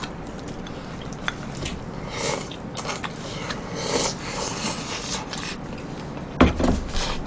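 Close-up eating sounds: slurping from bowls and chewing, with soft hissing bursts about two and four seconds in, and light clicks of chopsticks and spoons on ceramic bowls.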